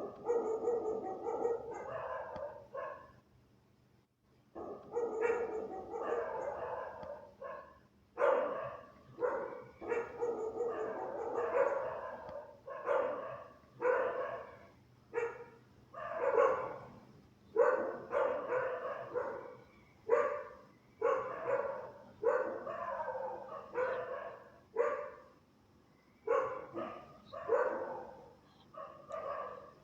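Dog barking angrily, bark after bark about once a second, with a short pause about three seconds in.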